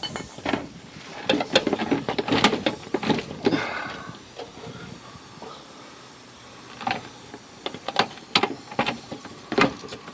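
Irregular metal clinks and knocks of a socket and wrench being fitted and worked on a rusted axle nut, with a quieter pause in the middle.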